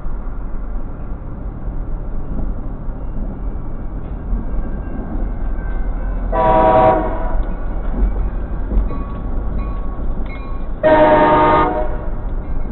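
Diesel freight locomotive's air horn sounding two short blasts about four and a half seconds apart, over a steady low rumble of road noise.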